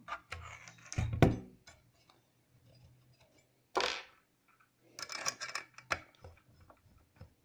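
Screws being backed out of a transceiver's metal mounting bracket with a small hand screwdriver: scattered clicks and metal scrapes, with a heavier knock about a second in and a short scrape about four seconds in.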